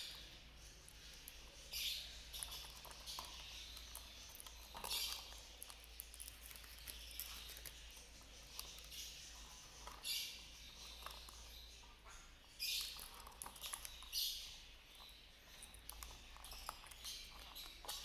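Small caged parrots giving short, harsh, high chirps every few seconds.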